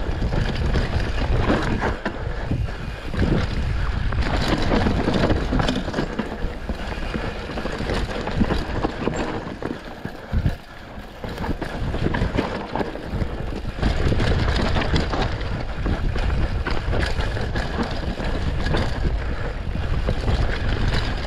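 Mountain bike descending a rough dirt singletrack: tyres on loose dirt and roots, the bike rattling and knocking over bumps, with wind noise on the handlebar-level camera microphone. It goes quieter for a moment about ten seconds in.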